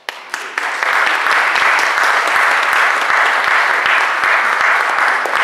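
An audience applauding: the clapping starts suddenly, swells within the first second and then keeps up steadily.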